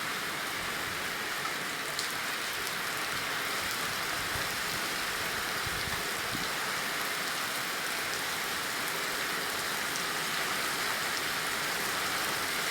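Heavy rain falling steadily: a downpour, a steady hiss with a few faint drop ticks.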